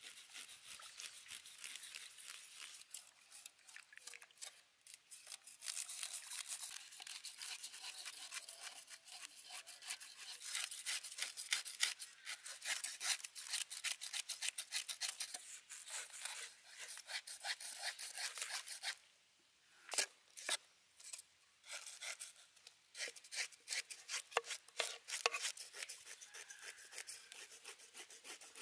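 A knife blade scraping the scales off a whole fish on a wooden cutting board, in quick repeated strokes, with a short pause about two-thirds of the way through.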